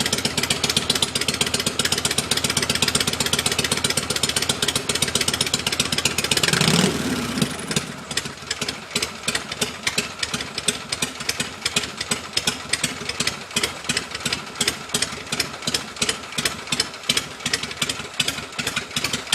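Harley-Davidson Shovelhead V-twin with magneto ignition running fast and busy, then about seven seconds in the revs fall away and it settles into a slow, loping idle of roughly two to three beats a second.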